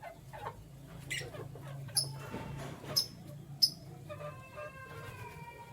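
Canaries chirping: four short, sharp high chirps about a second apart, then a longer, lower held call with several tones starting about four seconds in, over a low steady hum.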